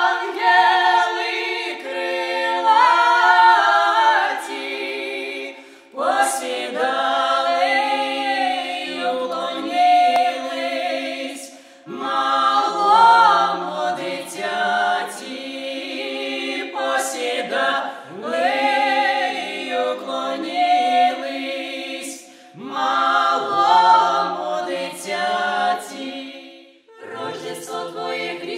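Small folk vocal ensemble singing a Slavic Christmas carol (koliadka) a cappella in several-part harmony. The carol goes in phrases of about six seconds with a short break between them, several opening with an upward slide in pitch.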